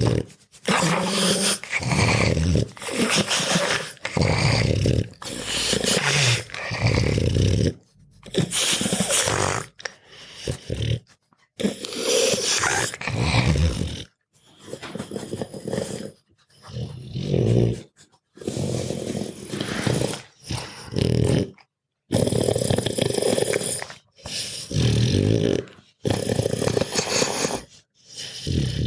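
Dog snoring loudly: a long snore on each breath, one after another, with short silent gaps between them.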